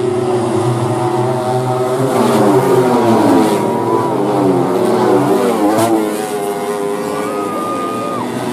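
Several four-stroke 150 cc underbone race motorcycles at full throttle, engines revving high with their pitches rising and falling as they shift and sweep past.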